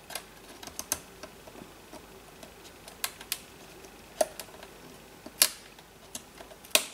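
Small irregular clicks and taps of thin laser-cut MDF pieces being pressed and slotted together as the kit's tabs fit tightly into place. The two loudest clicks come near the end.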